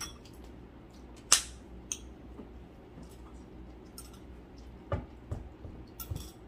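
Scattered light clicks of chopsticks against a ceramic rice bowl while eating, the sharpest about a second and a half in, over a low steady hum.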